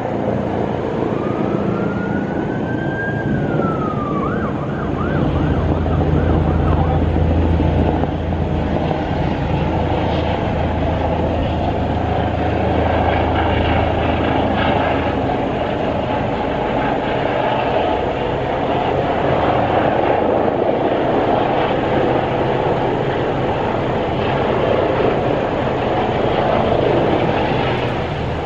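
Helicopter landing, its rotor and engine noise loud and steady with a low drone that is strongest in the first half. About a second in, a siren wails up and down once, then yelps rapidly for a moment.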